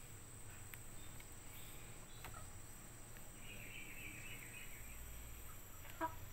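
Quiet rural background of insects, a steady high-pitched drone, with a brief chirping about halfway through and a single sharp click near the end.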